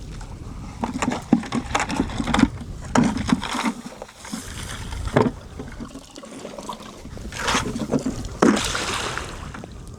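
Pond water splashing and sloshing as a bucket is handled and thrown back out into the water: a run of irregular splashes, with the largest near the end.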